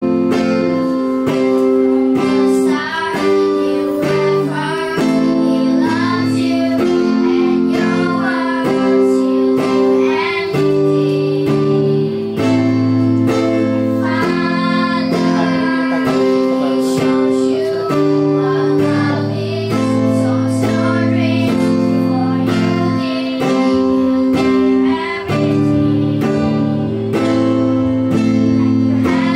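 Young girls singing a song to held keyboard chords and guitar.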